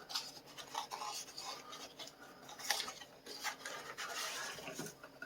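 Irregular rubbing and scraping of packaging being handled and opened by hand, with a few light clicks and taps.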